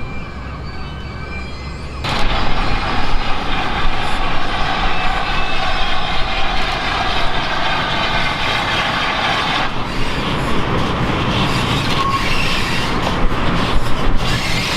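A steam train running on the line, loud and dense, coming in suddenly about two seconds in after a quieter stretch, with a run of sharp clicks near the end.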